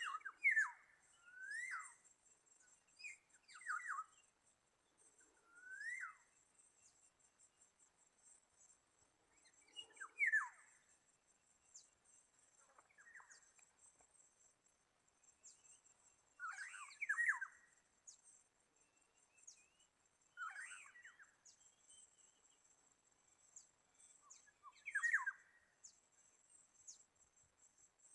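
Black-naped orioles calling: short, quick sweeping calls, sometimes in twos or threes, repeated every few seconds, with the loudest near the start, about 17 s in and about 25 s in. A continuous high-pitched, finely pulsing insect buzz runs underneath.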